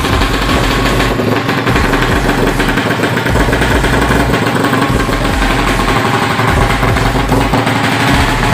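Suzuki Satria FU motorcycle engine, ported to 155 cc, running steadily.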